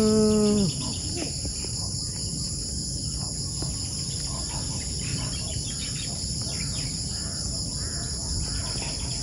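Outdoor insect chorus: several steady, high-pitched shrill tones held without a break.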